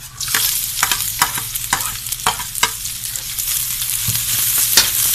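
Sliced onions dropped into hot oil in a wok with browned garlic, setting off a loud sizzle just after the start. A spatula stirring them scrapes and taps against the wok about twice a second.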